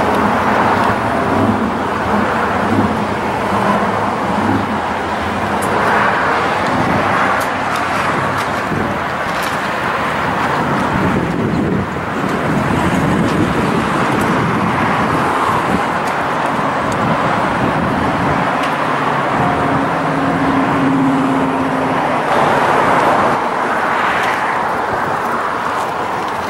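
Vehicle engines running, with steady traffic noise.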